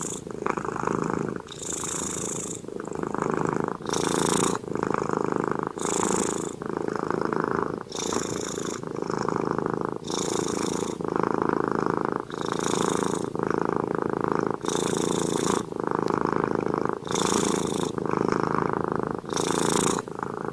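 Sleeping domestic cat snoring: a continuous rasping rumble that swells and dips with each breath, about one breath every two seconds, with a short hiss at the turn of each breath.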